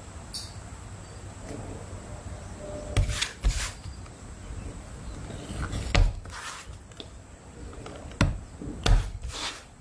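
Hand tools and materials being worked on a workbench: about five sharp knocks or taps, two close together about three seconds in and two more near the end, with brief scraping and rustling around them.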